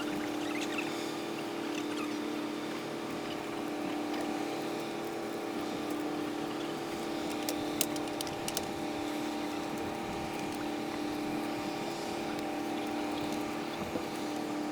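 Steady droning hum of a ship or boat engine, with a few short sharp clicks about halfway through.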